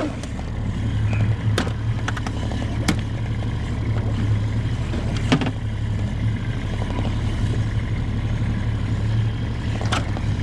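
Outboard motor of a fishing skiff running steadily with a low hum, with a few sharp clicks and knocks about a second and a half, three, five and ten seconds in.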